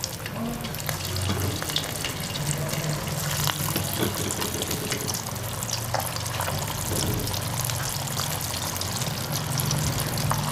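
Semolina and gram-flour (suji and besan) kababs deep-frying in hot ghee in a wok: a steady sizzle with scattered crackles as the kababs are slipped into the fat.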